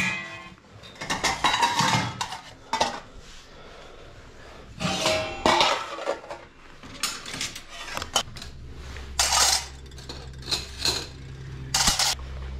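Dishes and cutlery clattering and clinking in irregular short knocks as food is set out. A low steady hum comes in about eight seconds in.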